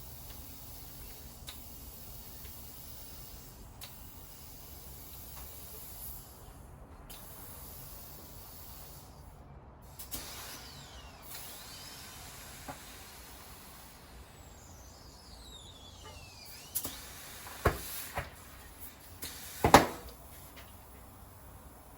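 Compressed air hissing from an air compressor's hose as it inflates a tubeless mountain bike tire, with a few brief breaks in the hiss. Several loud, sharp pops come near the end.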